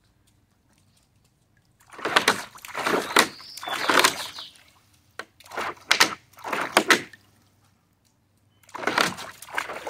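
A dog pawing and digging at the water of a small pool, splashing and sloshing in three bouts of a second or two each.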